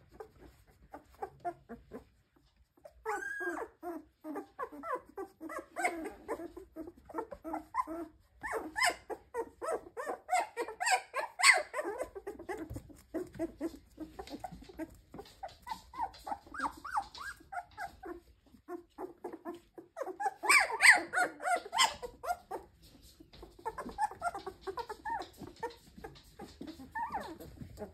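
Very young standard poodle puppies whining and yipping in a run of short, high, overlapping calls, louder about a third of the way in and again about three-quarters through.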